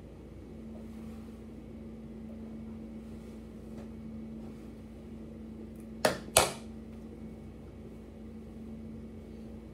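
A steady low hum runs throughout, broken about six seconds in by two sharp, loud knocks about a third of a second apart.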